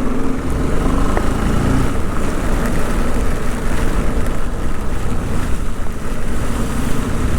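Motorcycle riding in heavy rain: the engine runs under a heavy rumble of wind buffeting the microphone, with rain hiss over it. The engine note is clearest in the first two seconds and then sinks into the wind noise.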